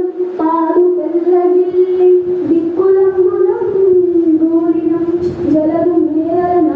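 A child singing a Telugu padyam verse in a drawn-out melodic chant, holding long, nearly level notes with small bends between syllables.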